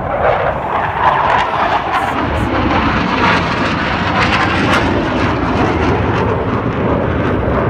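Loud, steady jet roar of an F/A-18 Hornet's twin turbofan engines as the jet flies a diving display pass.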